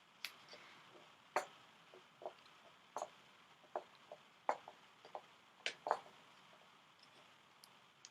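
A dozen or more light clicks and knocks at uneven intervals, thinning out after about six seconds.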